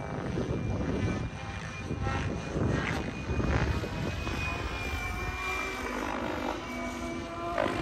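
Electric radio-controlled M7 helicopter in flight: the rotor blades chop as the loudness swells and dips with its manoeuvres. A high, thin whine from the motor and drive drifts slightly in pitch.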